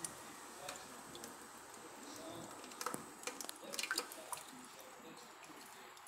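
Thin stream of kitchen-tap water trickling and dripping onto a bathing cockatiel and the wet benchtop, with a quick cluster of sharp splashes and taps about three to four seconds in.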